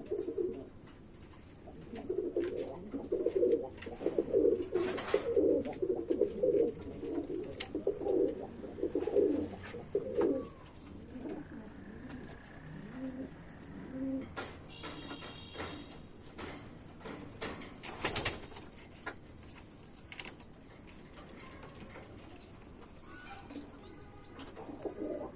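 Domestic pigeons cooing in low, rolling coos, thick and repeated for the first ten seconds or so, then only now and then until they pick up again near the end.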